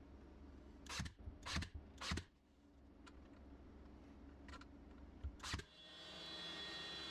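A Ryobi AirStrike cordless nailer firing brads into a plywood sheet, six shots in two groups of three. Near the end the steady running whine of a CNC router fades in.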